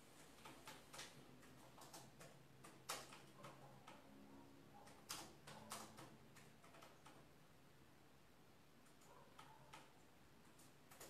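Faint, irregular clicks of typing on a Samsung laptop keyboard, a cluster of keystrokes in the first seven seconds, then a few more near the end.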